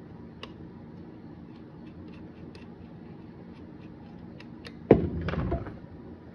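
Small scattered clicks and ticks of a screw being driven into a circuit board with a small screwdriver, then a loud clunk and a brief rattle about five seconds in as the control panel is set down on the bench.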